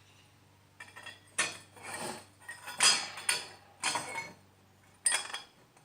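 Loose metal parts and tools clinking and rattling as they are handled, in a run of short clattering bursts that starts about a second in.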